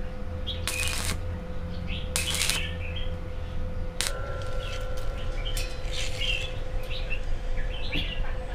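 Small birds chirping on and off over a steady hum. There are two short noise bursts in the first three seconds and a sharp click about four seconds in.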